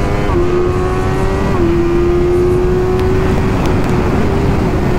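2008 Yamaha R1 race bike's inline-four engine pulling hard under full throttle, its note climbing steadily and dipping briefly at two quick gear changes, about a third of a second in and about a second and a half in. Heavy wind rush on the onboard microphone at speed.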